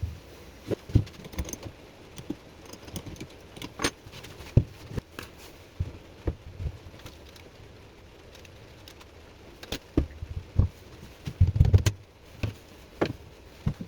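Scattered light knocks and clicks of objects being handled and set down, with a cluster of heavier thumps about three-quarters of the way through.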